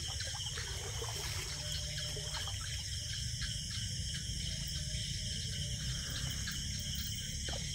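Shallow stream water splashing and trickling around hands groping along the bottom for small paral fish, with small scattered splashes, over a steady high chirring of night insects.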